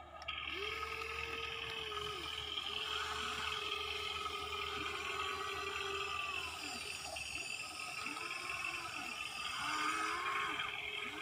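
Electric gear motors of a Huina 1593 remote-control excavator whining in short runs that rise in pitch, hold and drop away as it swings its cab and raises its boom.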